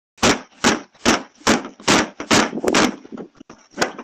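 Plastic wheeled trash bins being kicked and shoved, a rapid run of sharp whacks about two and a half a second.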